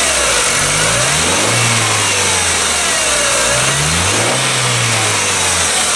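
Ford Ka 1.0 Zetec Rocam four-cylinder engine running and being revved up, held briefly and let back down a couple of times. The engine's oil pressure is about 1 bar below the maker's figure.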